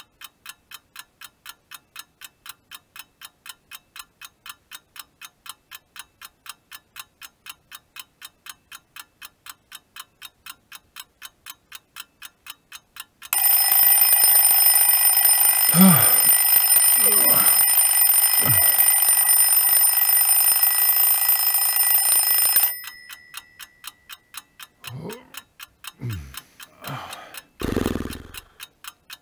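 Alarm clock ticking quickly and evenly, about three ticks a second. About thirteen seconds in its alarm rings loudly for about nine seconds and cuts off abruptly, while the ticking carries on. A few short low vocal sounds from a man come during and after the ringing, and there is a thump near the end.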